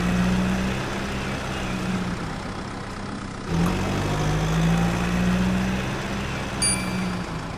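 Small electric motor of a homemade radio-controlled toy tractor running with a steady low hum; it eases off about two seconds in and picks up again about three and a half seconds in, rising in pitch as it speeds up. A short high chime sounds near the end.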